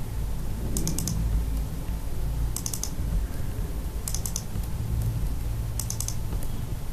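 Computer keyboard typing in four short bursts of a few keystrokes each, about a second and a half apart, over a steady low hum.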